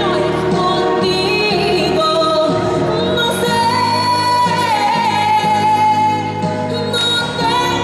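Young woman singing into a microphone over musical accompaniment, amplified through a stage loudspeaker, holding one long note through the middle.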